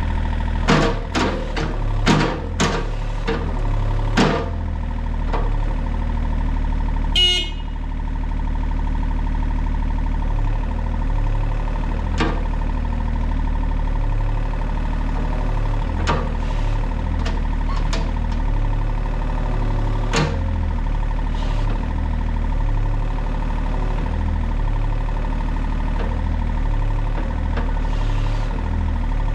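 John Deere excavator's diesel engine running with a pulsing low rumble and a steady high tone over it. Sharp knocks come five times in the first few seconds and a few more times later.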